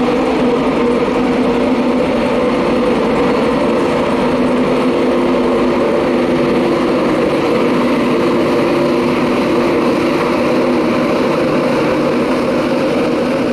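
LNER InterCity 225 train, a Class 91 electric locomotive with its coaches, moving slowly along the platform. It makes a steady, loud hum with several held tones over a rumble.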